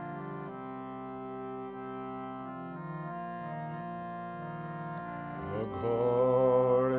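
Harmonium playing sustained reedy chords that change a few times, and about five and a half seconds in a voice begins chanting over it, louder than the harmonium.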